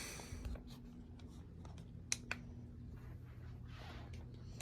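A few faint, sharp clicks of handling, two close together about two seconds in, over a low steady electrical hum.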